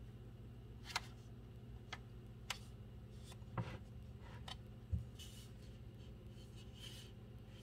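Faint, quiet room: a low steady hum with about six short scattered clicks and taps, and a brief soft hiss a little past the middle.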